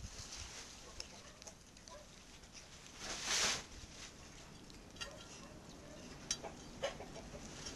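A cat eating and licking close to the microphone, with scattered small clicks from its mouth, and a short loud rush of noise about three seconds in.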